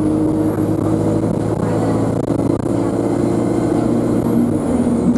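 Alexander Dennis Enviro200 bus's diesel engine pulling under power, with a high turbocharger whine that climbs, holds, and falls away near the end as the engine note drops.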